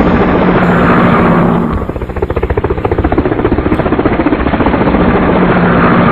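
Toy helicopter running with a loud, fast, even chopping pulse and a hum underneath that swells and fades.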